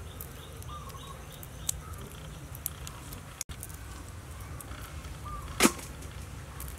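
Hands peeling raw river shrimp over a glass bowl: a few small sharp clicks and one loud snap about five and a half seconds in, over a low steady hum with faint short chirps. The sound cuts out for a moment about three and a half seconds in.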